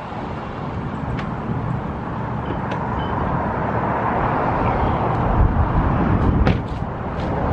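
Wind rushing over the microphone with a car's road and engine noise as it pulls to a stop; the noise grows steadily louder over the first few seconds, and a single sharp knock comes near the end.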